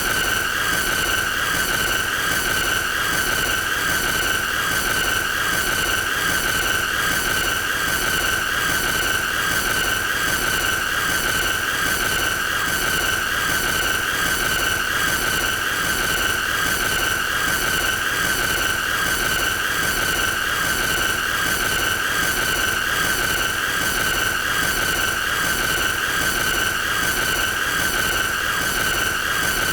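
A loud, piercing high-pitched squeal held on one steady pitch with a slight regular wavering, going on without a break: the looped 'most annoying sound'.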